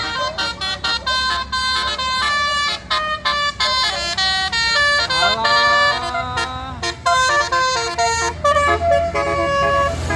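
A bus's musical 'basuri' telolet horn playing a fast tune of short stepped notes, with one longer note that glides up and back down about five seconds in. A low engine rumble grows near the end.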